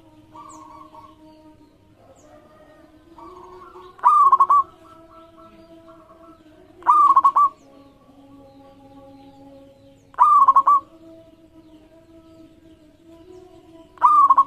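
Zebra doves (local perkutut) cooing. Four loud, short trilled calls come about every three seconds, with softer continuous cooing from other doves underneath.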